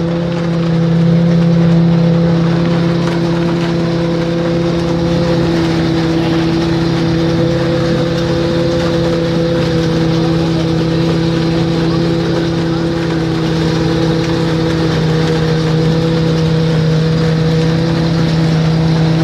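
Compact tractor engine running at a steady, constant speed, powering a chestnut husking machine as it processes spiny chestnut burrs; a continuous hum over a noisy wash from the machine.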